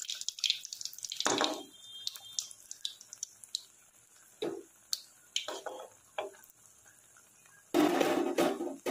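Malpuas deep-frying in hot rice bran oil in a karai: sizzling and crackling with scattered sharp pops, and a louder burst of noise near the end.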